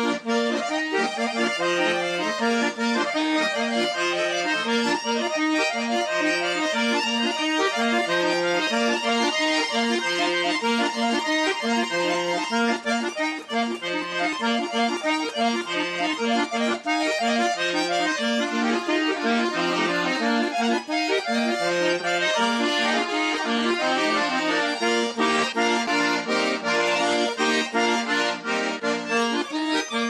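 Bayan and accordion playing a folk-style duet, with a steady repeating bass line under the melody.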